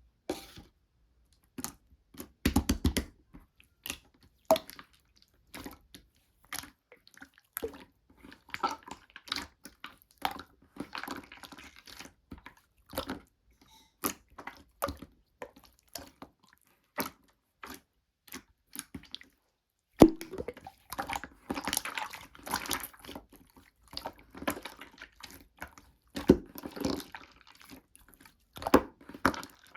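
Slime being squeezed, stretched and poked by hand: irregular sticky clicks and wet pops, growing denser and louder about twenty seconds in.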